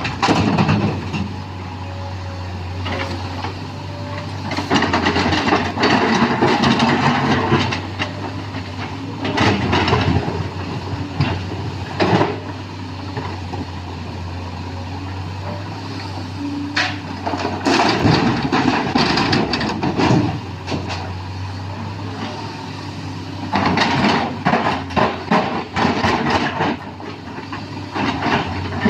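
Sany SY215C excavator's diesel engine running steadily, with loud bursts of rock clattering and scraping every few seconds as the bucket digs stone and tips it into a dump truck.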